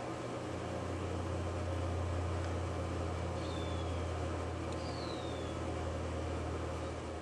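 Steady low machine hum with a wide noisy hiss, unbroken throughout. Two faint, short, falling bird chirps sound over it in the middle.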